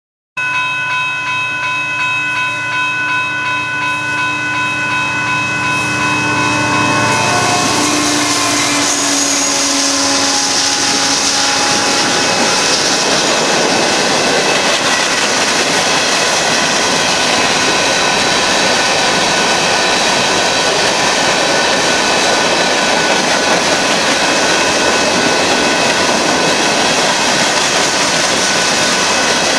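Union Pacific freight train passing at speed: the diesel locomotives' steady tones drop in pitch about seven seconds in as they go by, then a steady, loud noise of the freight cars' wheels rolling on the rails.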